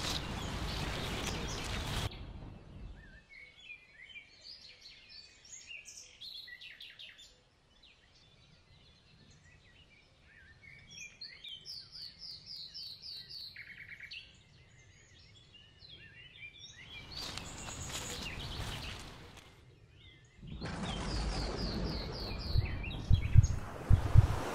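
Small woodland birds chirping and trilling, including a quick run of evenly repeated notes, between stretches of rustling noise that are loudest at the start and near the end.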